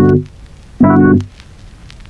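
Background music of short chords: one dies away just after the start, and another sounds about a second in.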